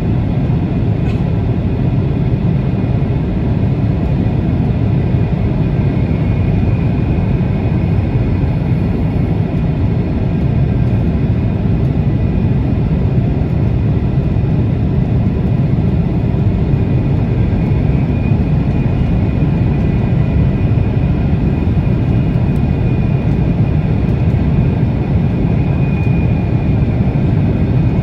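Steady airliner cabin noise in flight: a constant low rumble of engines and airflow, with a faint high whine over it.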